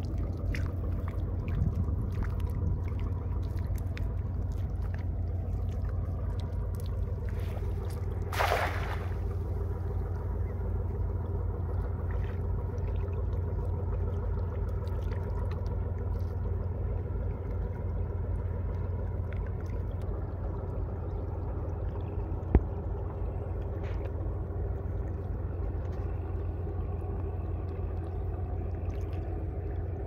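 Steady low drone of a distant boat engine, with a short rush of noise about eight and a half seconds in and a single sharp click a little past twenty-two seconds.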